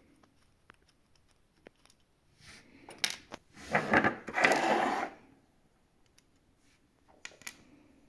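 Hand work on small sewing-machine parts: scattered light clicks, then a loud rustling and scraping stretch with a couple of sharp metallic clicks about three to five seconds in, and two sharp clicks near the end as a small screw and washer are set down on the table.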